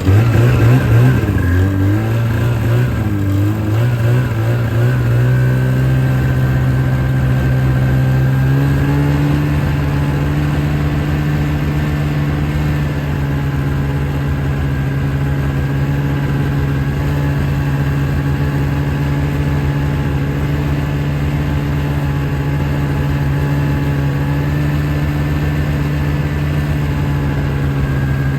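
Engine running, its pitch rising and falling as it is revved for the first few seconds, then settling into a steady, even run from about eight seconds in.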